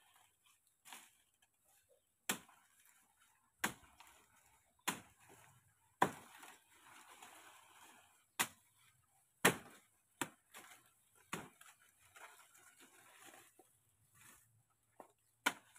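A blade chopping into the trunk of a banana plant: about ten sharp strokes, irregularly spaced one to two seconds apart, with a pause near the end before a last stroke, and faint rustling of leaves and litter between the strokes.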